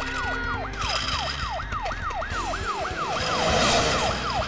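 Ambulance siren sound effect in a cartoon, yelping in quick rising-and-falling sweeps, about three a second. A brief rushing noise swells about three and a half seconds in.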